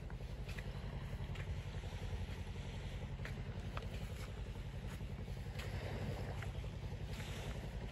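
Wind buffeting the microphone, a steady low rumble, with faint scattered ticks over it.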